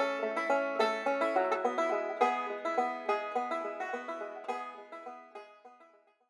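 Outro music of quickly picked plucked strings, banjo-like, fading out near the end.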